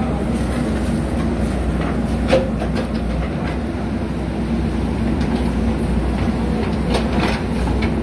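JCB 3DX backhoe loader's diesel engine running steadily as the rear backhoe arm digs, with a few sharp clanks, one about two seconds in and a couple near the end.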